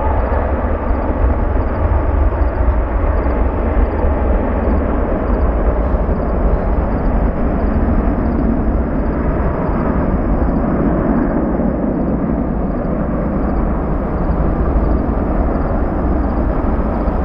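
Boeing 777 twin-jet on its takeoff roll: the jet engines at high power make a steady roar over a heavy low rumble. The roar swells somewhat about halfway through.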